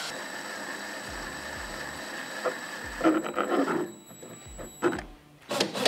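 Cordless drill running a hole saw's pilot bit through a plastic fuel tank, giving a steady high whine that stops about five seconds in. A short burst of noise comes near the end.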